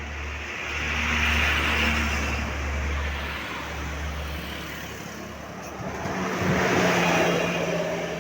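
Road traffic: two vehicles pass close by one after the other, each swelling up and fading. The first peaks about a second and a half in, the second about seven seconds in. No horn is heard.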